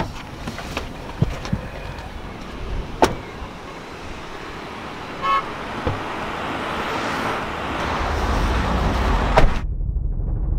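Street traffic noise with a few clicks and a short beep about five seconds in. Near the end a car door shuts with a sharp knock, and the sound turns muffled and low, as heard from inside the closed car.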